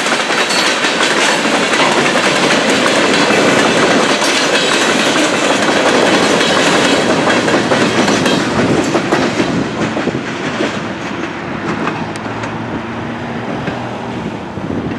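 Empty grain hopper cars rolling through a grade crossing, their wheels clattering over the rails. The sound eases off about two-thirds of the way through as the last car clears, leaving the crossing's mechanical bell ringing.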